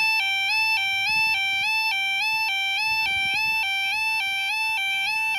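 Level crossing audible warning alarm (yodel alarm) sounding, a steady electronic tone stepping evenly between two pitches about twice a second; it signals that the crossing is closing for an approaching train.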